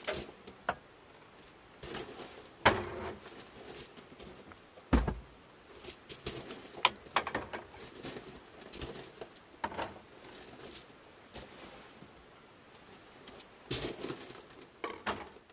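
Glass mason jars clinking and knocking as they are picked up and set down on shelves: a run of sharp clicks at uneven intervals, with one heavier knock about five seconds in and a cluster near the end.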